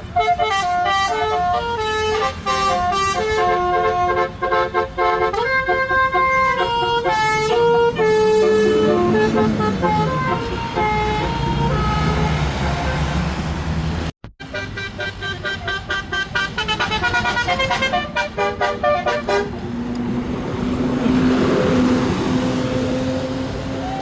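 Indonesian tour bus 'telolet' musical horn playing a quick tune of stepped notes, over and over, with a short break about halfway through. Near the end it gives way to a long held tone that rises slowly.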